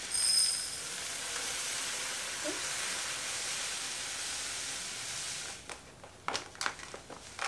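Dry red lentils poured from a packet into a clip-top glass jar, a steady hissing rush of small grains streaming in for about five seconds. It stops and gives way to a few short clicks near the end.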